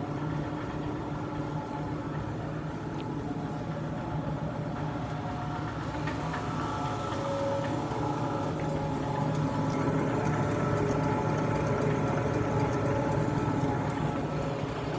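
Steady machine hum with several steady tones, getting a little louder about halfway through.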